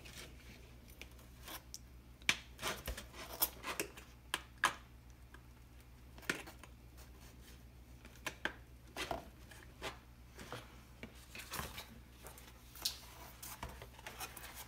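Thin plastic water bottle being handled: irregular crinkles, clicks and scrapes as wooden skewers and rubber bands are worked around it.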